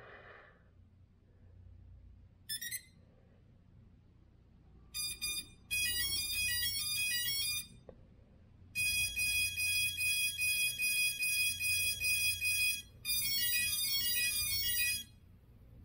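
An electronic melody of quick, high-pitched beeping tones, like a ringtone, playing in several phrases with short gaps between them, over a faint low hum.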